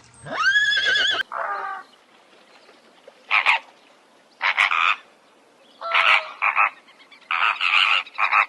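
A high, wavering animal call near the start, then a series of short, rasping croaking calls, about one every second or so.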